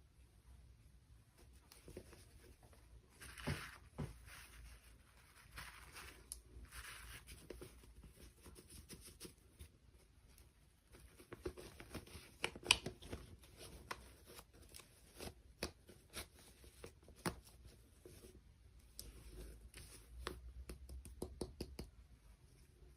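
Toy packaging being handled and torn open: short bursts of rustling and tearing with many scattered sharp clicks and taps, thickest in the middle.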